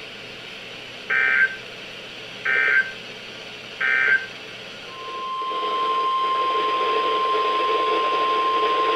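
NOAA Weather Radio end-of-message tones: three short bursts of EAS/SAME data screech about a second and a half apart, closing the warning. About five seconds in, the steady 1050 Hz weather radio warning alarm tone starts over radio hiss, announcing the next alert.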